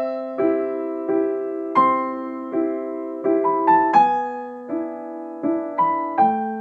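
Background piano music: single notes and chords struck about once or twice a second, each ringing and fading.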